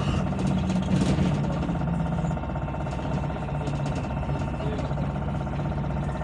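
Bogdan T901.10 trolleybus heard from inside the passenger cabin while riding: a steady electric drive hum with rolling and running noise. The low hum dips slightly about two seconds in.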